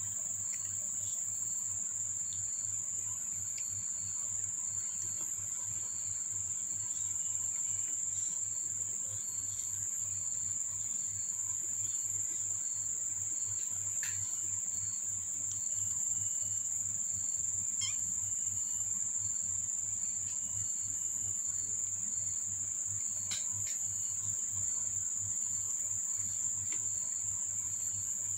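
Steady high-pitched insect chirring, with a fainter pulsing trill and a low steady hum underneath; a few faint clicks now and then.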